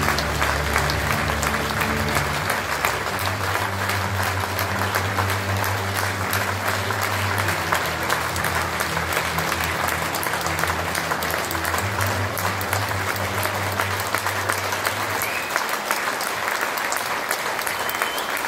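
Theatre audience applauding continuously, a dense crowd of clapping hands. Low sustained music plays underneath and stops about three-quarters of the way through.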